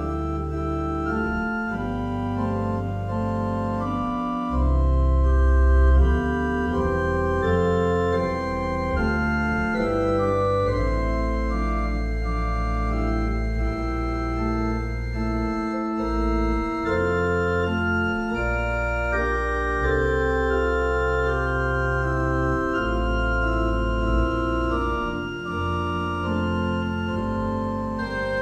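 Organ playing a prelude: sustained chords over deep bass notes held for several seconds at a time.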